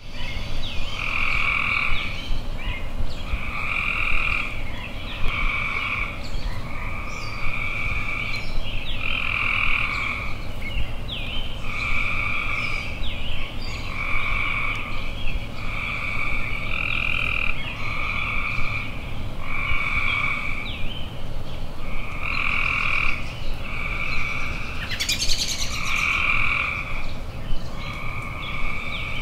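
A frog croaking over and over, one short call about every second, each call at a steady pitch.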